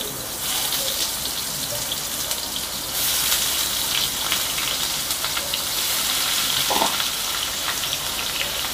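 Sliced onions sizzling and crackling in hot refined oil in a kadai as they are dropped in for frying. The sizzle grows louder about half a second in and again about three seconds in, as more onions go into the oil.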